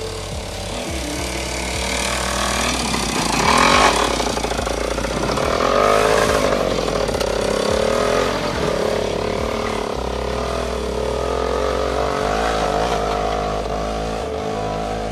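Voskhod motorcycle's single-cylinder two-stroke engine running under way, its pitch rising and falling as it is revved, loudest about four and six seconds in.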